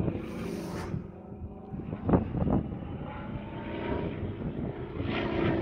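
Sukhoi Su-26 aerobatic plane's nine-cylinder radial engine and propeller droning in flight, the engine note rising slowly over the second half as it manoeuvres.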